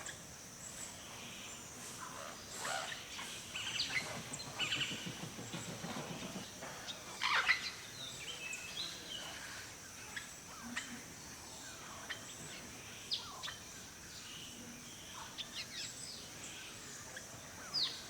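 Forest birdsong: several wild birds chirping and calling in short, sharp notes, the loudest call about seven seconds in, over a steady high-pitched hiss.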